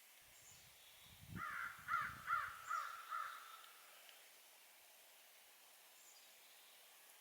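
A bird calling about five times in quick succession, the calls lasting about two seconds in all, starting a little over a second in.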